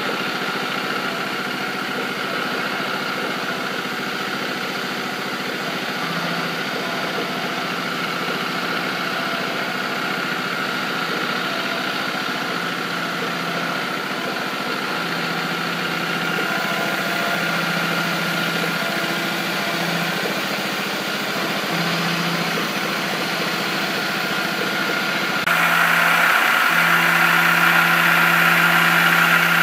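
Milling machine spindle running while an end mill cuts a pocket into a metal plate: a steady whine with a lower hum that comes and goes. The whole sound grows louder near the end.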